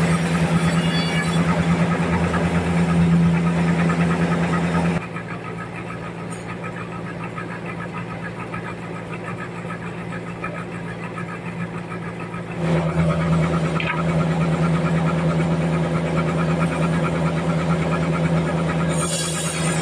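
Large vertical band sawmill running with a steady hum, its blade sawing lengthwise through a big trembesi (rain tree) log. The sound drops quieter and duller for several seconds a few seconds in, then comes back at full level.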